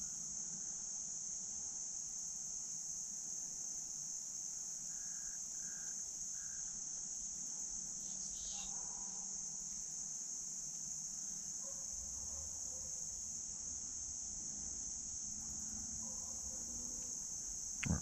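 Steady, high-pitched chorus of insects.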